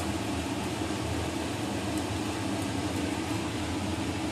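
Tomato chutney sizzling in a wok on a gas stove, a steady hiss, over a steady low hum.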